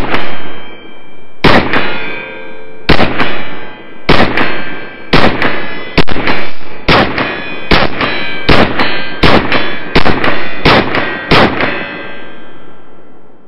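Kel-Tec P17 .22 LR semi-automatic pistol fired in a steady string of about a dozen shots, roughly one a second. Each shot is followed by a ringing echo that fades before the next.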